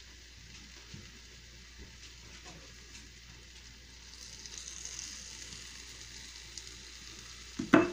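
Chicken and salsa cooking in a frying pan with a faint sizzle that grows louder and brighter about four seconds in. A single sharp clank, the loudest sound, comes near the end.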